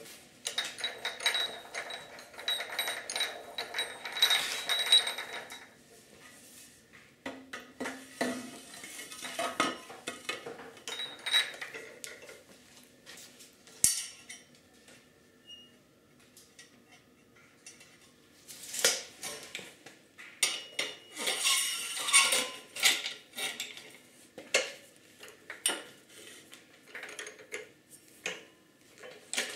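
Copper pipes clinking and clattering against metal as they are handled and clamped in a pipe vise, in dense stretches at the start and again around two-thirds through, with scattered sharp clicks and knocks between. Near the end a tubing cutter is turned around a pipe to cut it to length.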